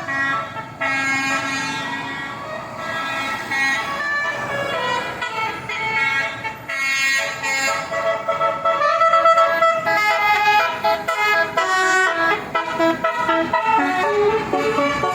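A multi-tone 'basuri' telolet horn on a road vehicle playing a melody: a run of held, chord-like notes that change pitch every half second or so, over traffic noise.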